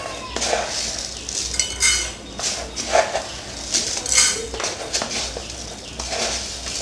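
Clinks and clatter of metal cookware, with dry coriander seeds poured rattling into an empty metal frying pan.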